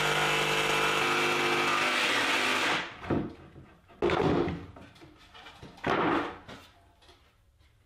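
Ridgid Octane cordless jigsaw cutting 3/4-inch plywood, a steady buzzing run that stops about three seconds in. Then come a few separate knocks and scrapes as the plywood pieces are handled.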